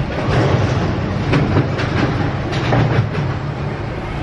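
Low rumble of a heavy road vehicle going past, swelling for a few seconds and then easing off, with several sharp clicks in between.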